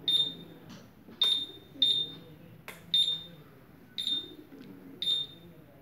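Kusam-Meco KM 7015IN high-voltage insulation tester beeping while its 5 kV insulation test runs: six short high-pitched beeps, roughly one a second. A single click sounds about midway.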